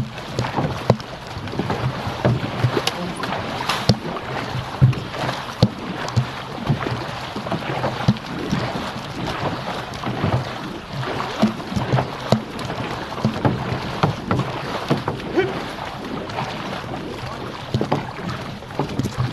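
Six-person outrigger canoe (OC6) under way at a training pace: paddles dig and pull through the water in steady strokes, with water rushing and splashing along the hull. Short sharp splashes and knocks come about every half second to a second.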